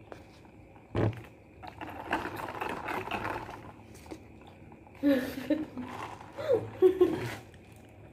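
Dinner-table handling noises: a single knock on the table about a second in, then paper food wrappers rustling. Several short pitched sounds that bend up and down follow later.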